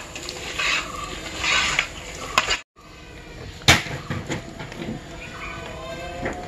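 Mutton pieces being mixed by hand with spice powders in a cooking vessel: rustling, with clicks against the vessel. The sound cuts out briefly just before halfway, and a sharp knock follows about a second later.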